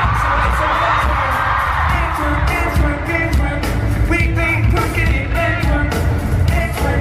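Live pop-rock band with drums and sung vocals, heard loud from within an arena crowd, with a wash of crowd screaming over the music in the first couple of seconds.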